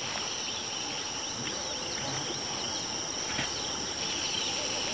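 Steady high-pitched insect drone with many short bird chirps scattered through it.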